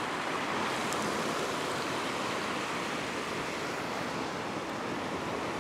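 Ocean surf washing over a rock ledge: a steady rush of white water.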